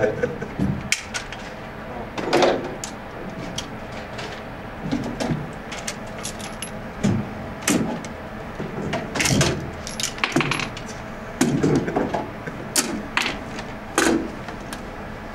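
Irregular metallic clicks and clunks, about a dozen spread out, from a PPSh-41 submachine gun being handled at the bench.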